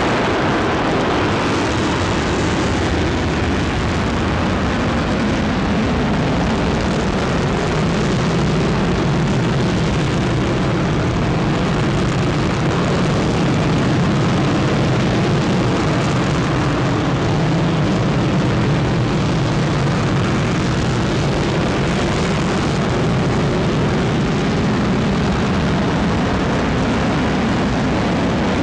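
SpaceX reusable test rocket stage's engine firing during a vertical takeoff test flight: a loud, steady, unbroken roar.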